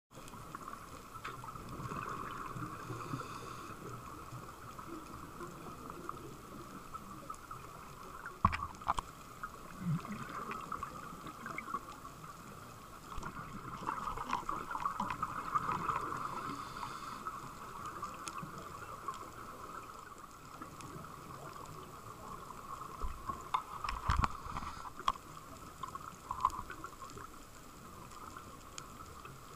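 Underwater ambience recorded on a scuba dive over a reef: a steady crackling hiss that swells and fades, with a few sharp knocks.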